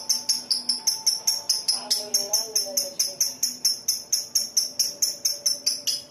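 Lovebird chattering in a long unbroken run of rapid, sharp high chirps, about six a second: the 'ngekek' song that Indonesian keepers play to lure other lovebirds into singing.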